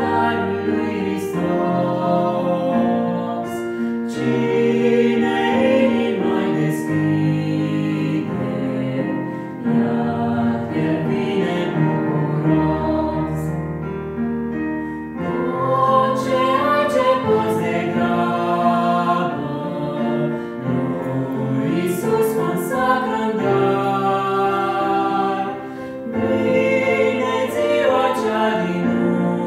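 Vocal trio of two women and a young man singing a Romanian Christian song in harmony through handheld microphones, over an instrumental accompaniment with sustained low bass notes.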